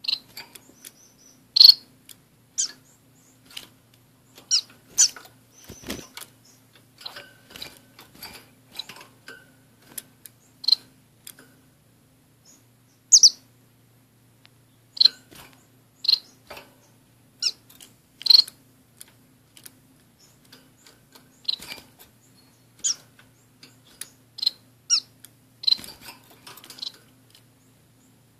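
Caged orange-cheeked waxbills and a society finch chirping: short, sharp, high-pitched calls at irregular intervals, sometimes two or three in quick succession.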